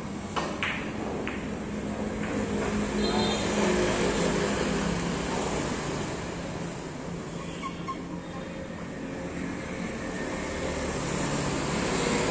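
Carom billiard balls clicking: the cue strikes the cue ball and the balls knock against each other, a few sharp clicks in the first second and a half. Under them is a steady background rumble that swells for a few seconds.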